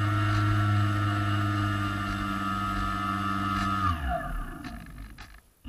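Swamp Dawg model airboat's propeller motor running at a steady pitch, then throttled back about four seconds in, its pitch falling as it winds down almost to silence near the end.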